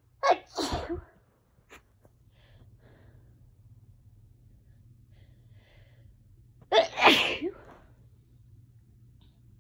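A person sneezing twice, about six seconds apart; each sneeze is a short sharp intake-like burst followed by a longer explosive release. These are allergy sneezes. A low steady hum runs underneath.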